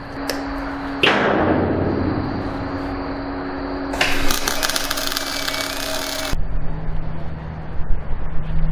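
Electric arc welding on a steel boat chock: the arc crackles densely for about two seconds in the middle and stops abruptly, with a quieter hiss and a steady hum before it. Near the end it gives way to a steady low hum.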